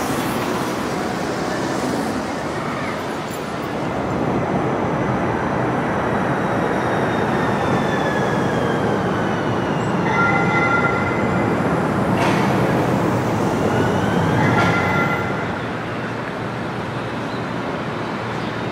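Atlanta Streetcar light-rail vehicle running along street track, a steady rumble of wheels and motors. A high whine falls in pitch through the middle, and short high-pitched tones come twice later on.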